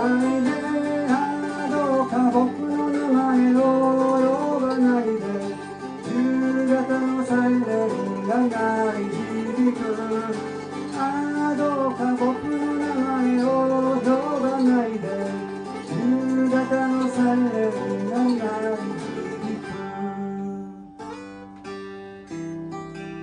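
Instrumental outro of a folk song: acoustic guitar strummed under a bending melody line. About twenty seconds in, the band drops away and a few sparse picked guitar notes ring out to close.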